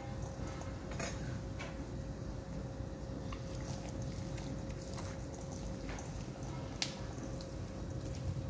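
Wet squelching and slapping of a hand rubbing chopped seasoning into a raw whole chicken in a stainless steel bowl, with scattered sharp clicks and taps, over a steady low hum.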